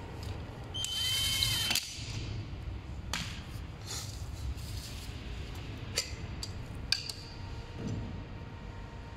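Cordless drill driving a screw into an electric scooter's folding mechanism in one short run of about a second, cutting off suddenly. A few sharp clicks of small metal parts being handled follow.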